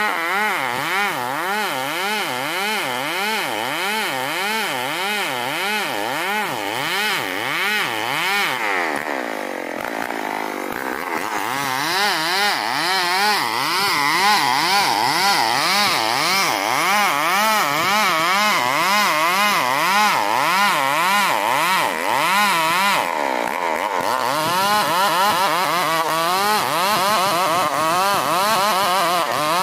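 STIHL 070 two-stroke chainsaw ripping lengthwise through a dense ulin (Borneo ironwood) log, its engine note wavering up and down about once or twice a second under load. Around ten seconds in the pitch sags, then the saw runs louder for the rest.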